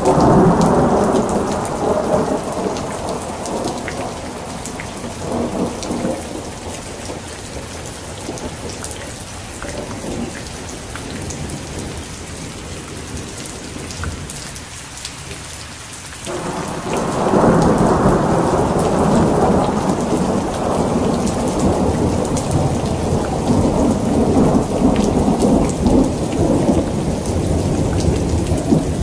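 Heavy rain falling steadily, with thunder rolling over it. A long rumble at the start dies away over the first ten seconds or so. A second one breaks in sharply about sixteen seconds in and keeps rumbling.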